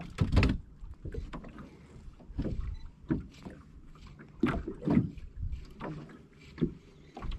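Water slapping irregularly against the hull of a small boat afloat at sea, in short bursts every second or so.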